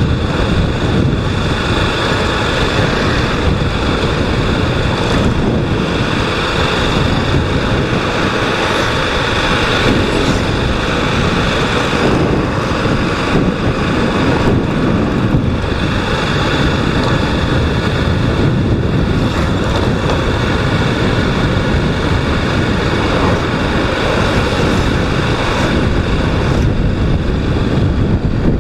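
Honda Twister 250 cc single-cylinder motorcycle running steadily while riding, its engine and exhaust noise mixed with wind buffeting the microphone.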